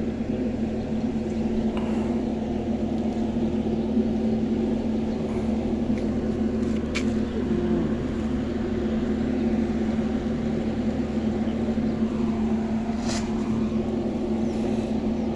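Steady low drone of a ship's diesel engine or generator running, with a constant hum that holds an even level throughout.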